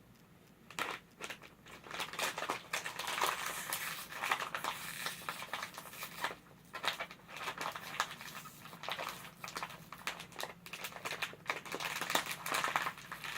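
Plastic snack packet crinkling and rustling, with many sharp crackles, as it is handled and pulled open.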